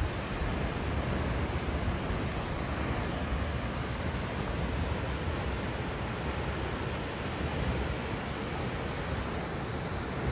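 Steady rushing roar of a tall waterfall heard from a lookout, heavy in the low end and unbroken throughout; described as pretty powerful.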